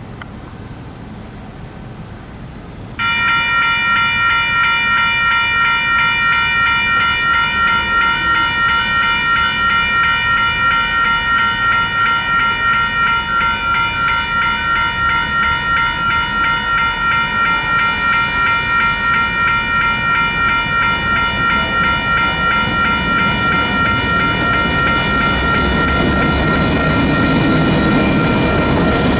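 Crossing bells start ringing suddenly about three seconds in and keep ringing: a rapid, even, repeating electronic ding, the WCH electronic bells on both crossing signals sounding as the crossing activates. Near the end, a low rumble from the arriving Union Pacific EMD GP60 locomotive and its wheels on the rails builds under the bells.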